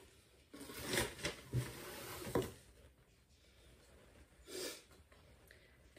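Fabric rustling as a jumpsuit is lifted out and handled for about two seconds, then a brief swish as it is shaken open.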